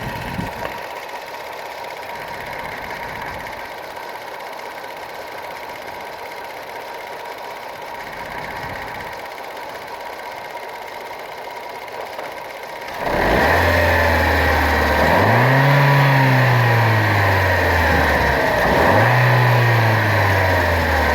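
A steady hum, then about 13 seconds in a car engine gets much louder and is revved twice, its pitch rising and falling each time. The revving is a check for a suspected bad motor mount.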